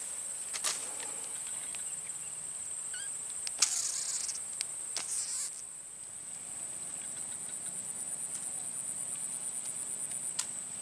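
Insects buzzing in a steady, high-pitched chorus that pulses rhythmically over the last few seconds, with a few sharp clicks, the loudest about three and a half seconds in.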